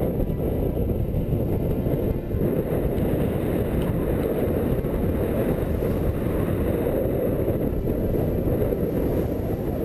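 Wind buffeting the microphone of a helmet-mounted GoPro, a steady low rumble with no let-up.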